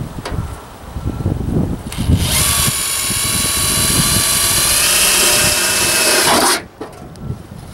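Cordless drill with a 15/64-inch bit drilling through sheet-metal chimney flashing, making a high steady whine. It starts about two seconds in, runs for about four seconds and stops suddenly, with a few low handling knocks before it.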